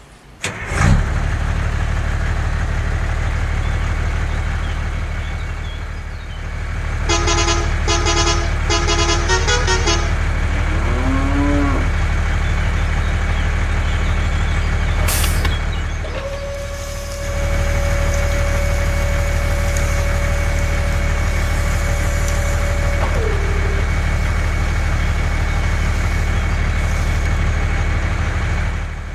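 A vehicle engine runs steadily with a low rumble. Over it come several short horn-like honks about a quarter of the way in, then a single long held tone through the middle.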